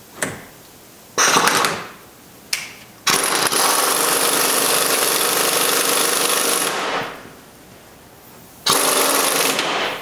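Pneumatic impact wrench hammering in four runs, the longest about four seconds, as it runs the front hub's center axle nut down snug.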